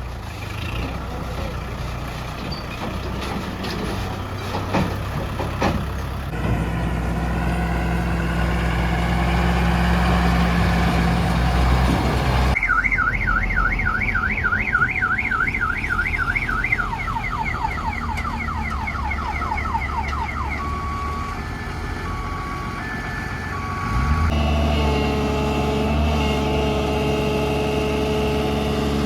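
Heavy diesel machinery engines running steadily, broken about halfway by an electronic vehicle alarm that cycles through a fast up-and-down warble, then repeated falling sweeps, then slow two-tone beeps, before the engine sound returns.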